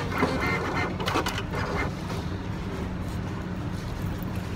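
A woman's brief wordless vocal sounds in the first two seconds over a steady low hum; after that only the hum remains.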